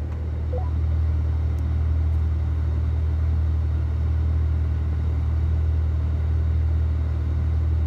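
Steady low rumble of a vehicle driving off-road at an even pace, with no revving.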